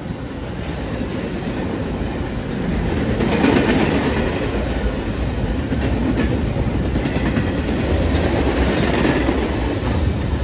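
Freight train cars rolling past close by, mostly empty articulated intermodal well cars: steel wheels rumble and clack over the rail joints, with some wheel squeal. The noise grows louder over the first few seconds and then holds steady.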